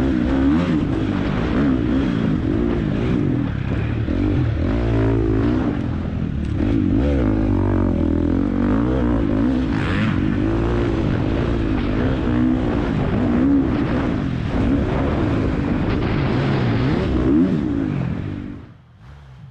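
Off-road dirt bike engine revving up and down over and over as it is ridden over rough, soft terrain. The sound drops away sharply near the end.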